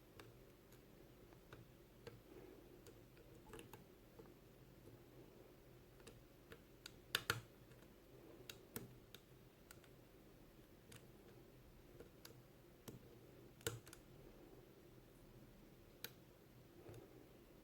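Faint, irregular small metal clicks of a lock pick and tension tool working the pins of a Wilka 1410 six-pin half cylinder, with a few sharper clicks about seven seconds in and again near fourteen seconds.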